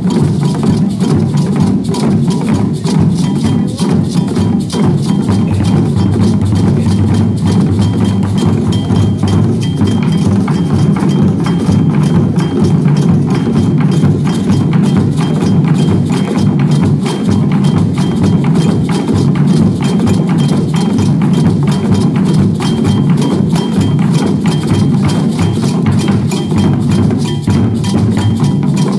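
A group of about a dozen players beating djembe-style drums with wooden sticks, a dense, continuous drumming rhythm of many quick strokes.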